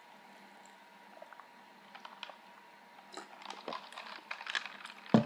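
Faint mouth clicks and chewing sounds after a drink from a mug. Just after five seconds, one loud knock as the mug is set down on the table.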